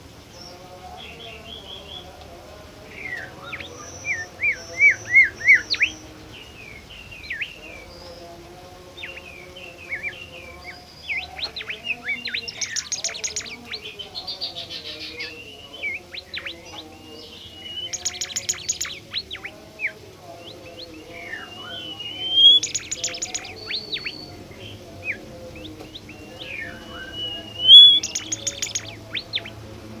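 Bimoli songbird singing: phrases of clear whistles, rising and falling slurs and quick runs of sharp repeated notes every few seconds, the loudest phrases coming about five seconds in and near the end.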